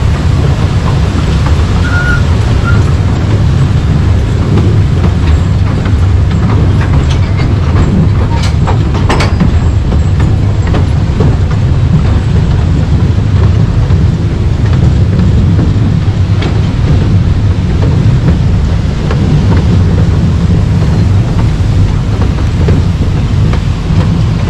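Taipingshan Bong-Bong narrow-gauge mountain train running along the track, heard from inside an open-sided carriage: a loud, steady low rumble with wheel clatter. A few sharper clacks come about eight to nine seconds in.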